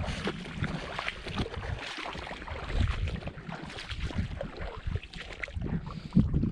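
Footsteps wading through ankle-deep water on a sandy tidal flat, with irregular splashing and sloshing and a low, uneven wind rumble on the microphone.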